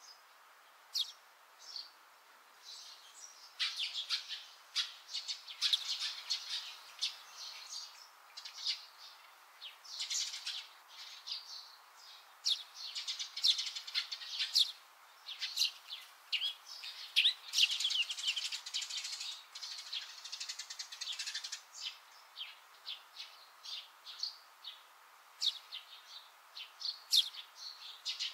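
Small wild birds chirping: many short, high chirps in quick runs, busiest through the middle and thinning out near the end.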